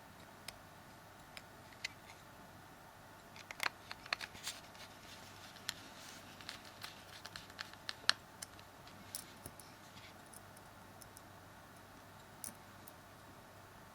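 Faint, scattered small clicks and scratches of a small Phillips screwdriver and tiny screws against a Samsung Galaxy S3's plastic frame as the ten screws are put back, busiest in the middle with a few more clicks near the end.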